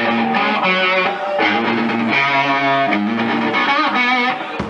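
Amplified electric guitar playing loud held chords that change every second or so, dropping away near the end.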